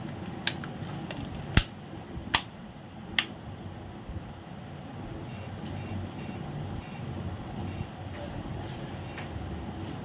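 Plastic battery back cover of an AC remote control snapped into place: four sharp clicks in the first three seconds, then only faint ticks as the rubber keys are pressed to test them.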